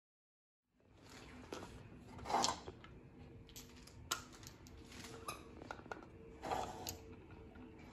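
Horizontal window blinds being tilted open by hand: scattered clicks and slat rattles, with two louder clatters about two and a half and six and a half seconds in, over a faint steady room hum.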